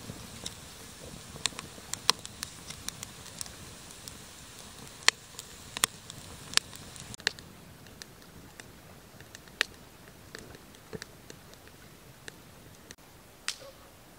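Small fire of dry twigs in a metal bucket stove crackling, with sharp irregular pops over a low hiss, the pops coming thickest in the first half.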